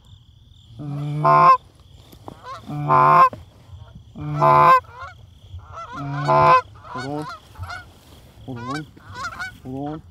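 Canada goose honking: four loud, drawn-out two-note honks about every second and a half, then quicker, fainter honks and clucks in the second half as a flock comes in. A faint steady insect trill runs underneath.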